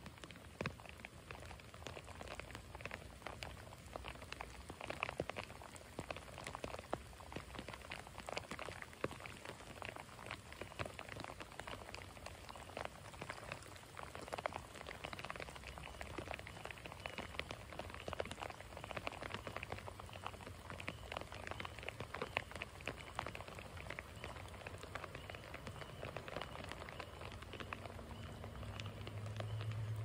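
Steady rain falling on the creek: a dense, even patter of many small drops. A low steady hum comes in near the end.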